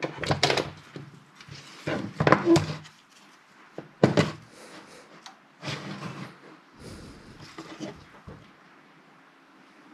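Handling noise from a bench power supply being taken apart: its front panel and circuit board are shifted about in the sheet-metal case, giving a run of uneven knocks and scrapes, the sharpest about four seconds in.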